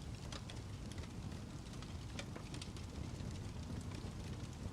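Wood fire in a fireplace crackling: scattered, irregular sharp pops over a steady low rumble.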